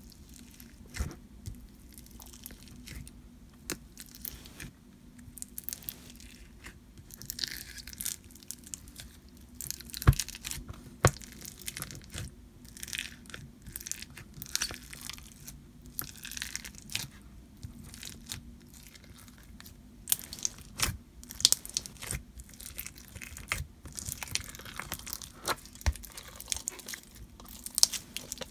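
White glue slushie slime full of hard plastic slushie beads being pressed and kneaded by fingers, giving crunchy crackles and sharp pops. The crackling is sparse at first and grows denser after about seven seconds, as the slime is worked and then stretched out of its tub.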